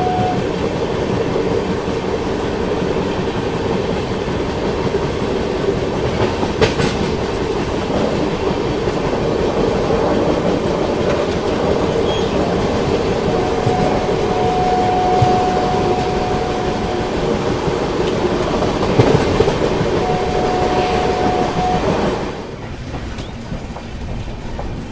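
Passenger express train running at speed, heard from an open coach doorway: a steady, loud rumble of wheels on the track. A long horn note sounds about halfway through and a shorter one a few seconds later.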